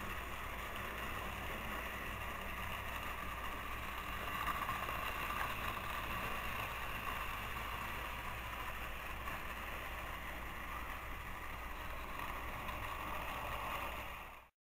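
Battery-powered Trackmaster toy trains running on plastic track: a steady whir of their small electric motors and wheels, fading out just before the end.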